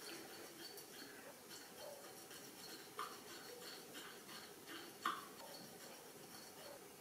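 Quiet eating sounds of a person chewing vegan sushi, with two soft clicks about three and five seconds in.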